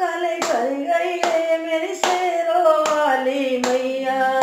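A woman singing a Hindi devotional bhajan in long, drawn-out notes, clapping her hands in a steady beat of about one clap every 0.8 seconds.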